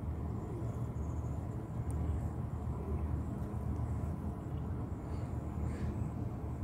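Steady, low outdoor background rumble with no distinct events standing out.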